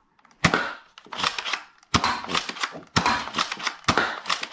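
Nerf Elite 2.0 Spectre Rev 5 foam-dart pistol being primed and fired four times, about a second apart: each shot is a sharp snap from the spring-driven plunger, with the sliding of the rear priming handle being pulled back between shots.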